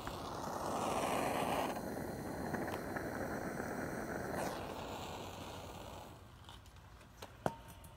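Torch lighter's jet flame hissing steadily for about six seconds, then a single sharp click near the end.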